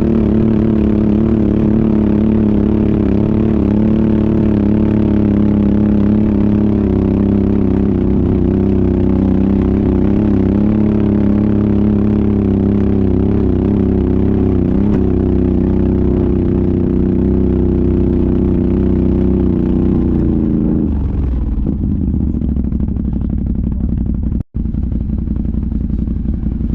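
ATV engine running at a steady speed under load for about twenty seconds, then dropping to a lower speed. The sound cuts out for a split second near the end.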